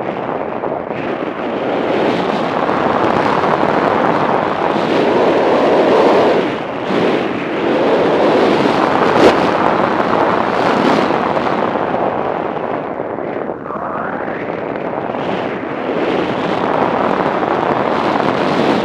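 Wind rushing over an action camera's microphone during a fast run down a powder snow slope, swelling and easing as the rider's speed changes, with a brief knock about nine seconds in.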